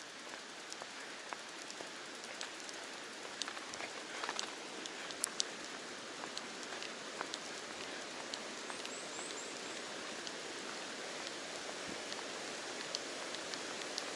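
Steady hiss of water with many scattered sharp ticks and drips, from a road lying under runoff water.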